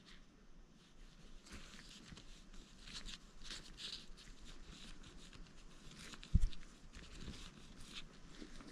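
Faint handling noises at a workbench, with soft rustling and light clicks as small parts are picked up and moved, and a single dull thump a little past six seconds in, as of something set down on the bench.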